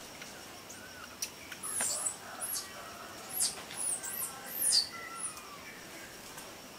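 A quick run of about eight very high-pitched chirps from a small animal, each one rising and falling, starting about a second and a half in and stopping a little past five seconds. A faint steady high whine runs under them.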